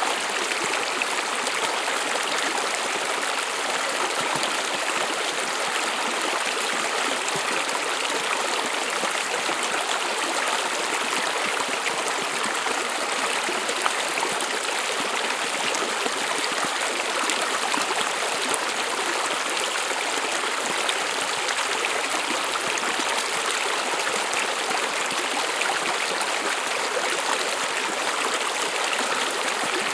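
Stream running over rocks: a steady rushing, babbling water sound with no breaks.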